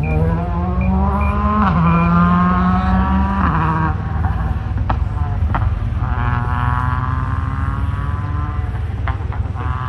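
Rally car engine at full throttle, its pitch climbing through the gears with quick upshifts about one and a half and three and a half seconds in, then pulling up through another gear near the end. A few sharp pops or clicks come in between.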